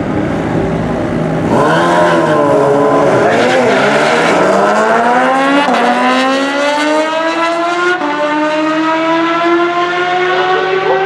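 A McLaren 720S and a Kawasaki Ninja H2 launch off the line in a quarter-mile drag race about a second and a half in. The engine pitch wavers briefly after the launch, then climbs steadily through the gears, with upshifts at about six and eight seconds in.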